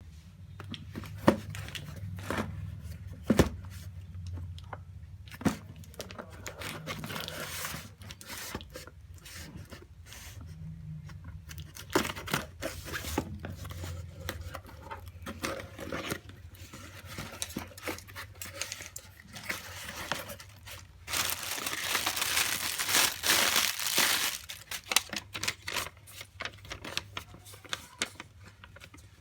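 Delivery packaging being torn open and crinkled by hand, with a few sharp knocks from handling. About two thirds of the way through there is a louder stretch of tearing lasting a few seconds.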